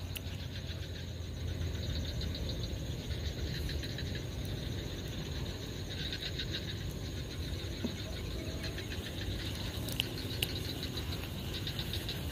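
Daido Predator 200L baitcasting reel being cranked to retrieve a surface frog lure: a fine rapid ticking in short spells, over a steady low outdoor rumble.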